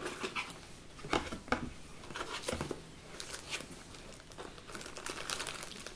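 Cardboard packaging rustling and scraping as hands lift an insert out of a box, with scattered light knocks and crinkles of plastic-bagged accessories.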